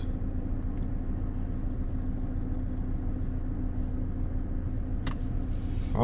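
A car running, heard as a steady low hum with a few steady tones in it, and a short click about five seconds in.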